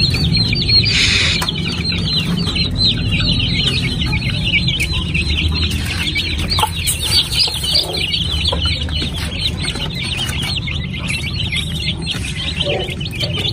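A cage full of young chicks peeping continuously, a dense chorus of rapid, high-pitched peeps, with a short rushing noise about a second in.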